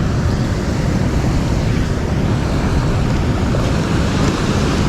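Steady rushing roar of water pouring through a dam spillway, an even noise with no breaks.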